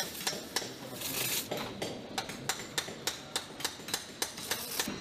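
Rapid, fairly regular sharp clicks or taps, about four a second, with a short burst of hiss about a second in.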